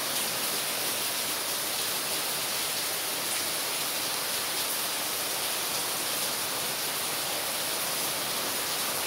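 Heavy rain pouring down steadily on a paved street and a tiled porch, an even hiss with no breaks.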